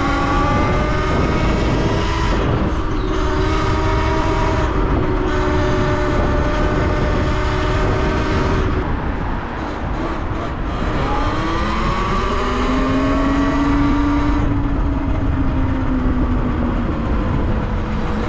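Talaria Sting electric dirt bike's motor whining as it is ridden, its pitch rising and falling with speed, over heavy wind noise on the microphone.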